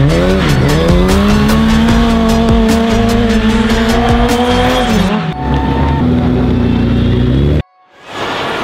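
Race car engine revving hard. Its pitch dips briefly near the start, then climbs and holds high for about four seconds. The pitch drops about five seconds in, and the sound stops abruptly near the end.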